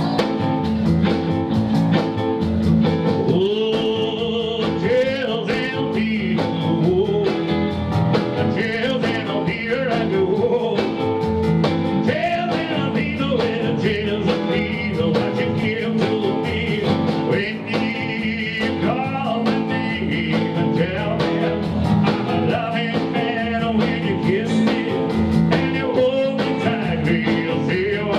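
Live rockabilly band playing: piano, electric guitar, double bass and drums.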